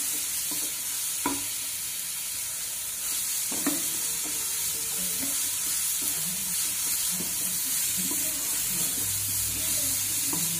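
Sliced onions and chillies sizzling steadily in a non-stick kadai as a wooden spatula stirs and scrapes through them, with a couple of sharp knocks against the pan.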